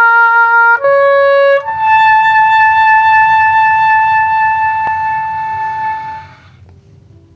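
Oboe playing two short notes stepping upward, then a long held high note of about four and a half seconds that fades away about six seconds in.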